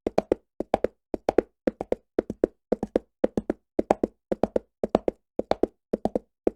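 Horse galloping on stone, its hooves striking in quick groups of three that repeat evenly about twice a second.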